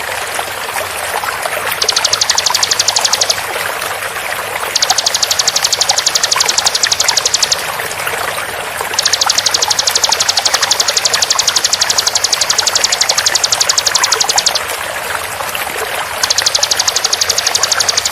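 Bar-winged prinia (ciblek) singing its rapid-fire trill: very fast, evenly spaced high notes in repeated bouts of one and a half to five seconds with short pauses between, over a steady hiss of running water.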